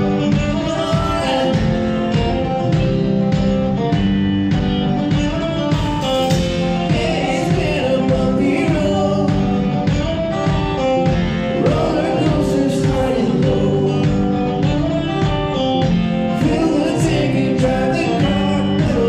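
A band playing a song live: guitar and drums, with a voice singing over them.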